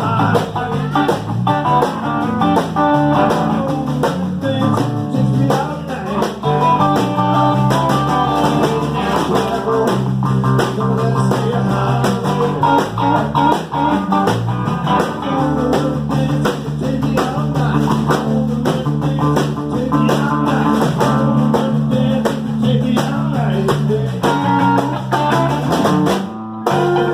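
Small live band playing: electric guitar, bass guitar and a snare drum, with some singing. The music drops out briefly just before the end.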